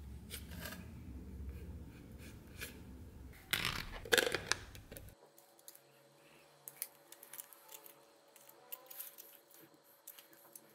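Handling clatter for the first few seconds, with a few loud clicks. Then aviation tin snips cut thin nickel silver sheet in many short, sharp snips and crunches.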